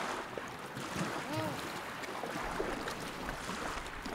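Small waves washing on a rocky shore, with one short arched call from a Pacific gull about a second in. Wind starts buffeting the microphone about halfway through.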